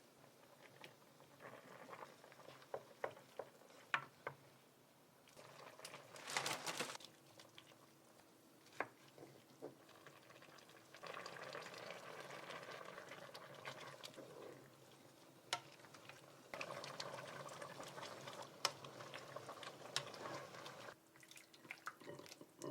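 Kitchen cooking sounds for soy-braised chicken: liquid poured and bubbling in a pot in several stretches, with scattered sharp clicks and knocks of utensils.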